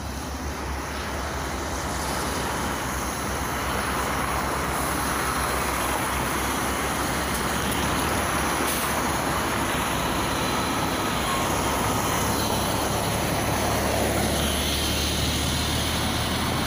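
A LiAZ 5292.67 city bus with a YaMZ-53624 natural-gas engine running close by at the kerb, mixed with steady street traffic noise. The bus begins to pull away near the end.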